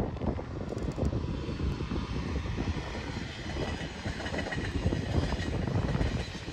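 TGV Duplex Dasye high-speed train drawing near, its running noise and a faint whine growing louder from about halfway in. Strong wind buffets the microphone throughout.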